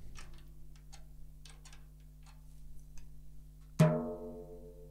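Faint ticking as a drum key turns a tension rod on a snare drum, then about four seconds in a single stick tap on the batter head near that rod, ringing with a clear pitched tone that fades: checking the head's pitch at that lug during fine-tuning.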